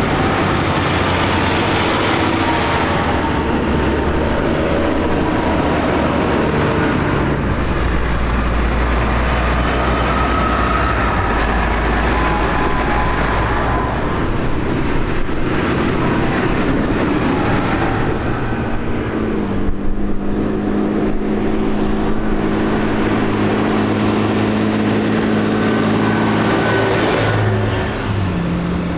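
A line of large farm tractors driving past one after another with their diesel engines running. The engine note shifts as each one passes, and a steady engine hum holds through the latter part before changing pitch near the end.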